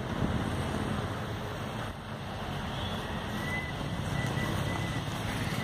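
ATV engine running as it is ridden round a dirt track, with wind noise on the microphone.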